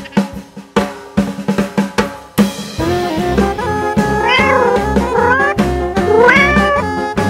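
Comedic background music: a run of snare-drum hits, then from about three seconds in a pulsing bass line under three bending, rising-and-falling melody phrases.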